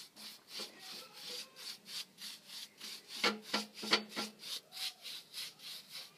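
Brush bristles scrubbing back and forth over a cast iron wood stove's top plate while rust converter is brushed on, in quick even strokes about three a second. Two louder knocks come a little past halfway.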